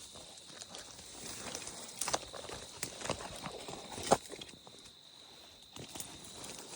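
Footsteps through dry swamp brush, with twigs and dead branches snapping and crackling underfoot in irregular steps, the sharpest snap about four seconds in. A faint steady high tone runs underneath.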